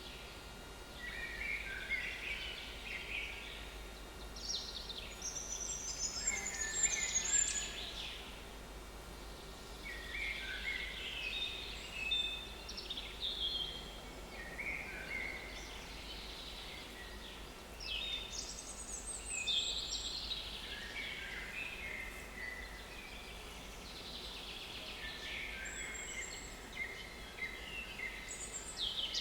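Small woodland songbirds singing at a forest edge, with phrases of varied chirps and trills every few seconds, some overlapping, over a soft steady background hiss.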